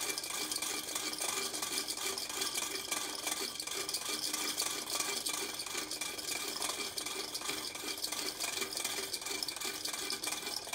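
Wooden weight-driven clockwork of a mechanical calendar and orrery running, its wooden gears giving a fast, even clatter of small clicks as the date wheel advances to the next day.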